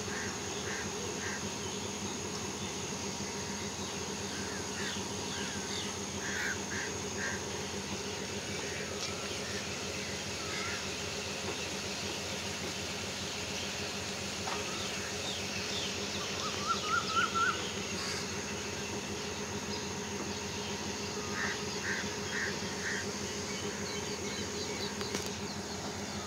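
Steady drone of diesel trains idling, with birds chirping over it. The loudest moment is a short rising bird trill about two-thirds of the way through.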